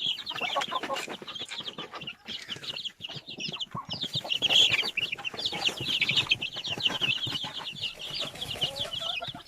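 A brood of young chicks peeping together: many short, high-pitched cheeps overlapping without a break, with scattered small clicks among them.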